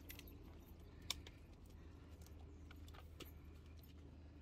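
Near silence: faint outdoor background hum with scattered small clicks, one sharper click about a second in.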